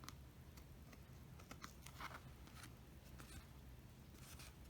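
Near silence with a few faint, scattered light clicks and rustles, as of thin metal foil and craft tools being handled.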